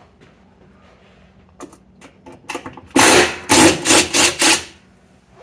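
Whirlpool Cabrio washplate (agitator) rocked back and forth by hand on its hub: a few light clicks, then about five loud rattling clunks in quick succession. The play and noise come from a worn washplate, which the owner takes for wear on its drive splines.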